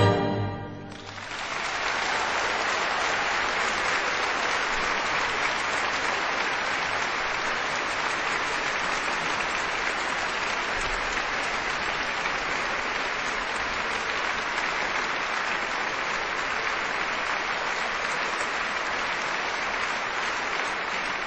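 Music fades out within the first second, then steady applause from an audience carries on.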